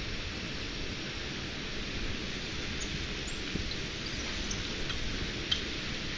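Steady rushing hiss of water from a nearby dam, with a few faint high ticks in the second half.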